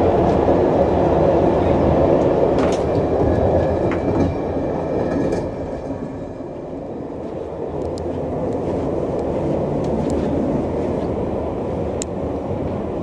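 Ride noise of a moving passenger carriage of the Yugoslav presidential Blue Train, heard from inside: a steady rumble of the wheels running on the rails, with a few faint clicks and rattles. It eases slightly about halfway through, then steadies.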